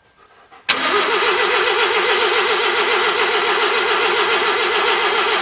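Long-stored 1985 Mazda RX-7's 13B twin-rotor engine being cranked by its starter: a sudden clunk well under a second in, then a steady, evenly pulsing cranking sound as the engine turns over without catching.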